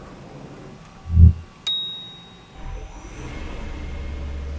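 A heavy thump about a second in, then a sharp click with a brief high ring. From about halfway, the DN Solutions Puma TT2100 CNC lathe's spindle starts up with a low hum that builds as it spins up the brass bar for the first cut.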